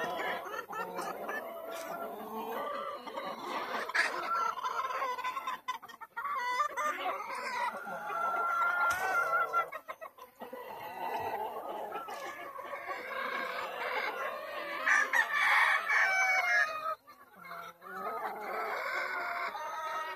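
Gamefowl chickens clucking and calling almost without a break, several at once, with crowing among the calls.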